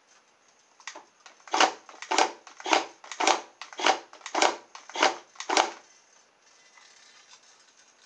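Cheap RC toy car's drive turning its back wheel, whose metal crank rod slides a barrel bolt in and out: a run of about eight evenly spaced mechanical strokes roughly half a second apart, starting about a second in and stopping near six seconds.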